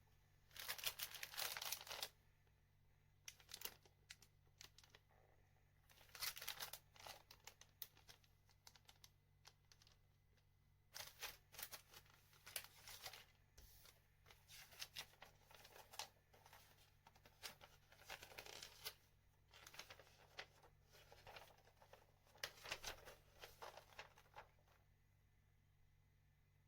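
Plastic packaging crinkling and tearing in irregular bursts, with short pauses between, as a model kit is unwrapped.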